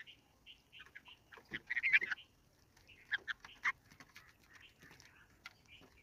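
Red-vented bulbuls calling: short, bright chirps and chattering notes, busiest about a second and a half to two seconds in and again around three seconds in.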